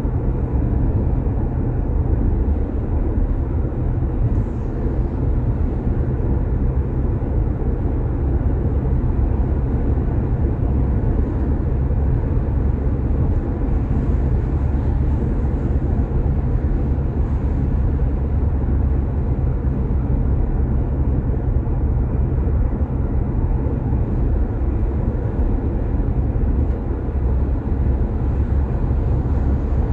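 Car driving at speed on an expressway: a steady low rumble of tyres and engine.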